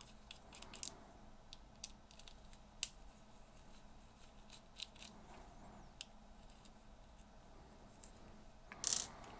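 Faint, scattered clicks and light scrapes of a small screwdriver backing out the tiny screws of a spinning reel's anti-reverse roller clutch cover, with a short louder scrape near the end.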